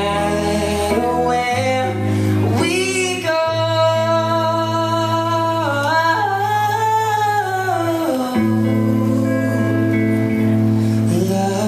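Live band playing a pop song: male voices sing long, held notes over electric guitars, bass and drums.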